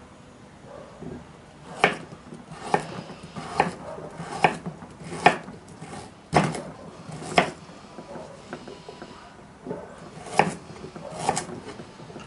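Kitchen knife chopping carrots on a wooden cutting board, each cut ending in a sharp knock of the blade on the board, roughly once a second, with a pause of about two seconds past the middle.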